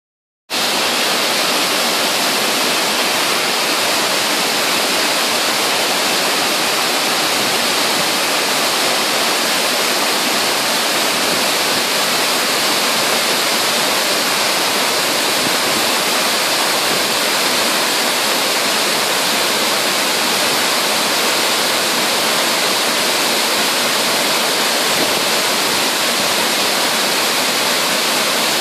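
Waterfall pouring, a loud, steady, even rush of falling water.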